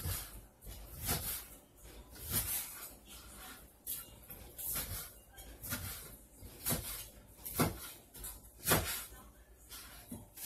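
Chef's knife cutting through fried chicken breast and knocking down onto a plastic cutting board, about one cut a second, each a short sharp knock.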